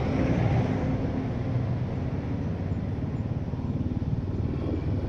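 Motor vehicle engine running steadily with road noise while driving, a low hum.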